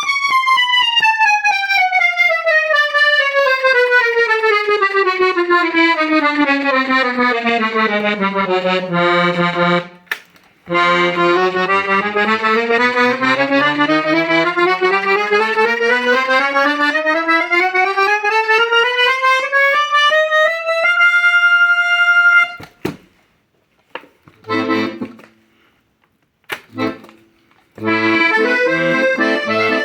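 Hohner Lucia IV P accordion played as a sound test. A stepwise scale runs down the keyboard over about nine seconds, then back up after a short break, ending on a held note. Near the end come a few short, low notes and then full sustained chords.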